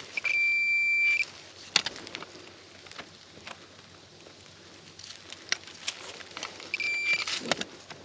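Metal detector giving a steady high beep for about a second, then a second shorter beep near the end, signalling metal in the dug hole. Scattered scrapes and clicks of soil and leaf litter being worked by hand come in between.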